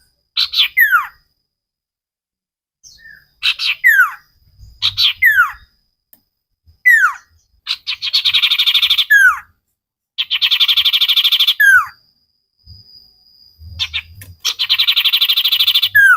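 Common iora (cipoh) singing: sharp down-slurred whistles repeated every second or so, broken three times by rapid buzzy trills about a second and a half long.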